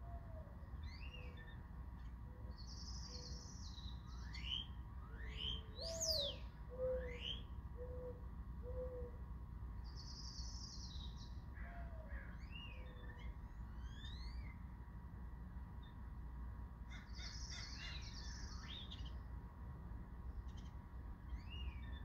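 A dove cooing in low, soft notes: a rising first coo followed by several lower ones, about six seconds in and again briefly later. Other small birds chirp around it with quick rising whistles and harsh, buzzy calls, over a steady low background rumble.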